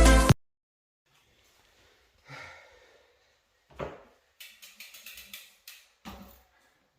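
Background music cuts off just after the start. Then a quiet room with a soft breath, a single knock, and a quick run of light clicks.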